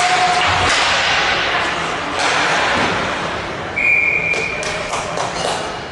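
Ice hockey play in an indoor rink: skates scraping the ice, with sharp clacks and knocks of sticks and puck. About four seconds in, a short high whistle blast sounds.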